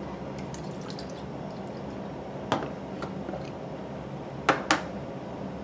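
A small glass jar of vinaigrette being handled and opened: a few light clicks and taps of glass and lid, the last two in quick succession, over a steady low hum.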